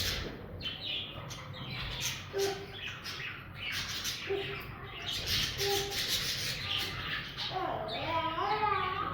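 Several budgies chattering and chirping in short, scratchy calls with a few brief low notes, turning into a wavering warble near the end.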